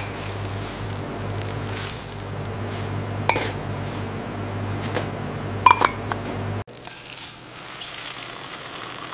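Steady machine hum with a few sharp, light ringing clinks. About two-thirds of the way through, the hum cuts off abruptly and gives way to a quieter hiss with soft clattering.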